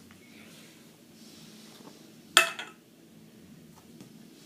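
A single sharp clank about two and a half seconds in, ringing briefly, as pull-up bar parts are handled and knock together during assembly; otherwise only quiet handling.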